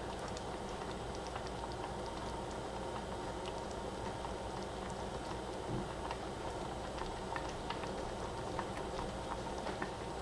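Fruit filling simmering in a pot on the stove: a steady hiss with scattered small pops and ticks from bursting bubbles, coming more often in the second half.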